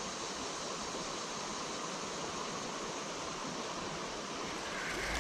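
Steady rush of flowing creek water, with a low rumble coming in near the end.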